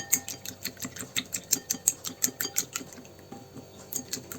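Wire whisk beating two eggs in a small bowl, its wires tapping the bowl in rapid, even clicks about five a second, growing fainter around three seconds in.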